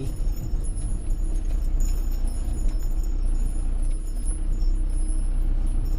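Fiat Scudo camper van driving, its engine and road noise a steady low rumble heard from inside the cab.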